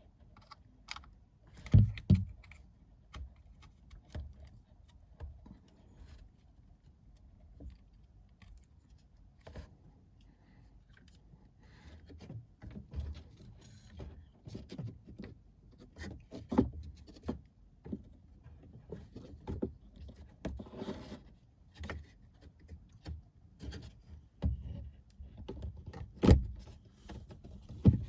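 Scattered handling noises: clicks, knocks and rubbing as a center speaker is connected and fitted into a car's dashboard, with a few louder thumps about two seconds in, midway and near the end.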